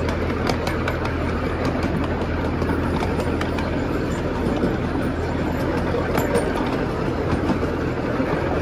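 Small open-car train ride running steadily, heard from on board: a constant low hum and rumble with occasional faint clicks.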